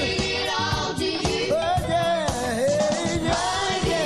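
Studio-recorded gospel song: a young male vocal group singing with band backing and a steady drum beat.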